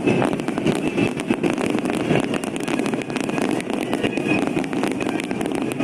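Aerial fireworks in a dense barrage, a fast continuous crackle of many small pops over a steady rumble.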